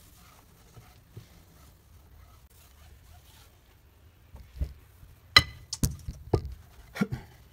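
A cloth rubbing faintly along steel side-by-side double gun barrels as the lubricant is wiped off. From about halfway through comes a string of sharp knocks and clinks as the barrels are lifted and handled.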